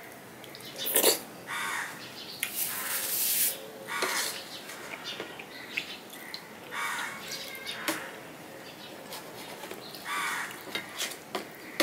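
Close-up eating sounds: a spoon scooping milk-soaked bakorkhani out of a steel bowl, with wet slurps and chewing in short bursts every second or two.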